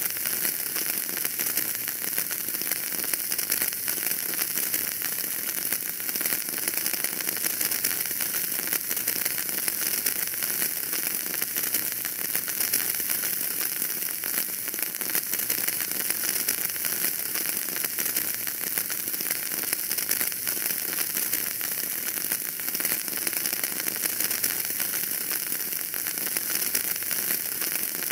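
Wood fire burning in a fireplace, crackling steadily: a continuous dense crackle and hiss with many small pops and no single loud snap.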